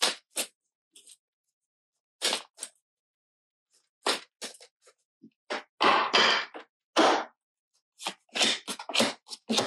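Rider-Waite tarot deck being shuffled by hand: a quick series of short card-shuffling rustles and snaps, with silent gaps between them.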